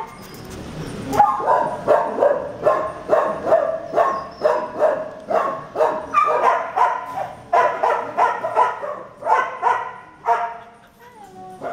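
Dog barking over and over, about two to three sharp barks a second, stopping about ten and a half seconds in.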